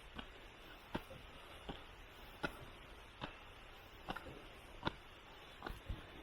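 Footsteps climbing stone steps: a soft, evenly paced tap about every three-quarters of a second.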